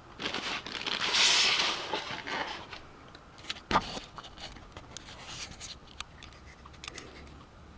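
Handling noises: a scraping rustle about a second in, a single knock a little before four seconds, and scattered small clicks.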